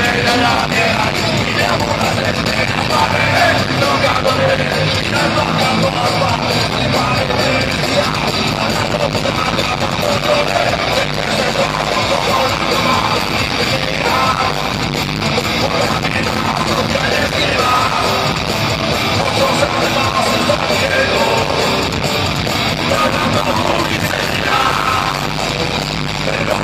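A metal band playing live at full volume, with electric guitars, drums and yelled vocals, heard from within the crowd.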